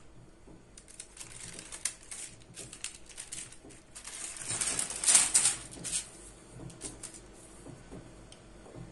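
Baking paper rustling and crinkling as hands handle it and peel it back off sheets of puff pastry. The rustling comes in short spells, loudest about halfway through.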